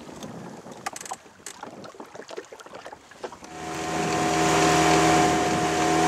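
A boat's outboard motor starts to be heard about halfway through and then runs steadily and loudly, a constant hum with a hiss of water and wind over it. Before that there are only faint water sounds and a few small knocks.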